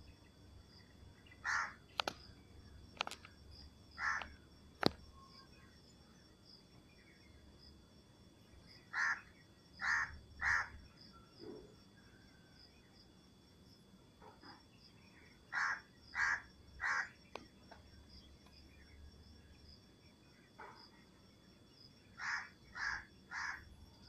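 Crows cawing in runs of two or three caws, about every six seconds, with a few sharp clicks in between. Under them is a faint steady high tone typical of insects.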